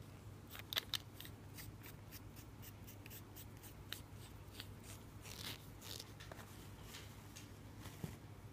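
Faint rustling of tissue paper with scattered small, sharp clicks as an inked fountain pen's grip section is wiped clean.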